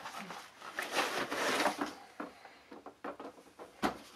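Cardboard packaging rustling and scraping as a hard plastic carrying case is pulled out of its box, with scattered knocks; the sharpest knock comes just before the end.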